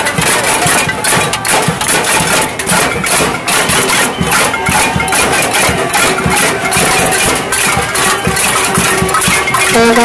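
Crowd banging pots and pans in a cacerolazo: a dense, continuous clatter of many metal strikes. Near the end a steady pitched tone cuts in, sliding quickly upward at its start.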